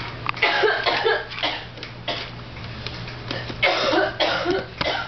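A person coughing in short, rough bursts, in two main bouts with a single cough between them.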